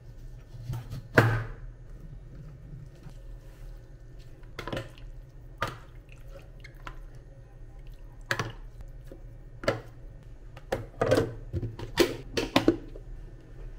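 Food-prep handling sounds over a low steady hum. About a second in, a knife chops through a lemon onto a cutting board. Scattered knocks and clinks follow from a glass citrus juicer and a spoon against a plastic food container. Near the end comes a quick run of snaps as the container's clip-lock lid is pressed shut.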